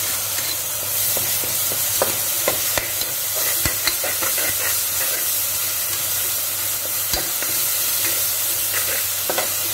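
Onions and ginger-garlic paste sizzling in oil in an aluminium pressure cooker while a ladle stirs them, with scattered clicks and knocks of the ladle against the pot.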